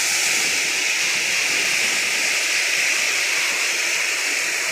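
Steady rush of water, a dense hiss with no breaks.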